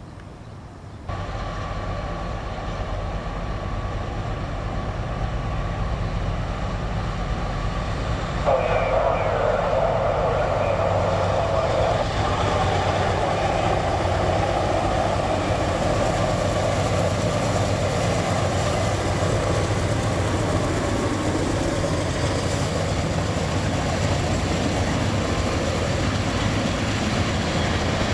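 Diesel freight train passing close by, its locomotive engines running with a steady low hum. The sound grows sharply louder about eight seconds in as the locomotives come near, and stays loud as the train goes by.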